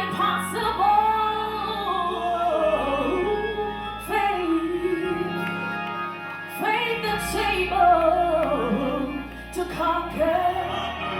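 A solo voice singing a slow, melismatic gospel line over organ accompaniment, with long held bass notes that change every couple of seconds.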